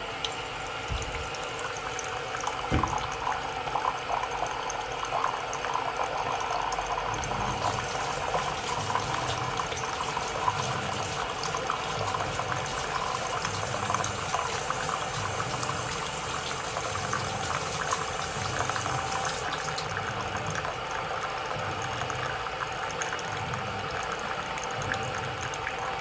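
FunHom 3L instant hot water dispenser pouring a thin, steady stream of hot water into a ceramic mug. A low hum pulses about once a second underneath from about seven seconds in.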